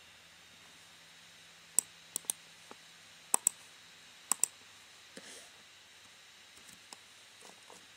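Sharp computer mouse and keyboard clicks, often in quick pairs, as code is copied and pasted: one click a little under two seconds in, pairs around two, three and a half and four and a half seconds in, then a few faint ticks.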